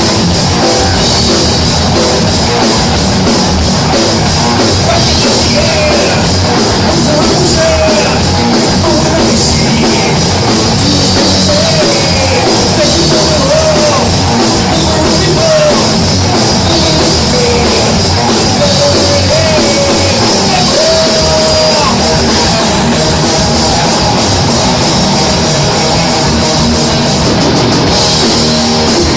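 Live rock band playing a heavy metal song loudly, with a drum kit and a wavering melody line over the dense band sound throughout.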